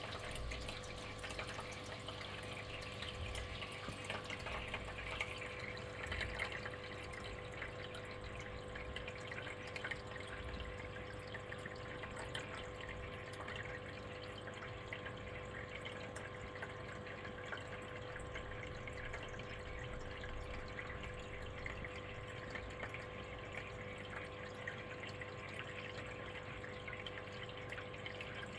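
Aquarium water trickling and dripping steadily, with a steady hum underneath, as from the tank's running filter.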